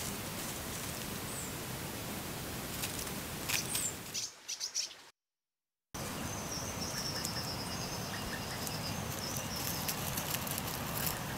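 Outdoor ambience from trail-camera footage: a steady hiss with small birds chirping now and then. It drops out to silence for about a second near the middle.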